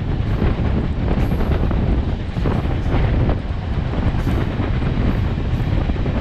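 Heavy wind buffeting the microphone, held out the side of a moving passenger train, over the steady rumble of the coaches rolling on the rails.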